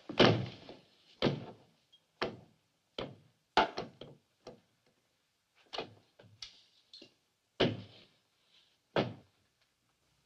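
Louvered swinging kitchen doors knocking as they swing and settle, then pushed through again: a series of sharp wooden knocks and thuds at irregular spacing, with lighter taps between the louder ones.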